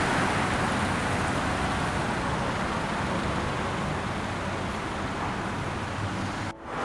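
Steady road traffic noise, a continuous rush of passing vehicles.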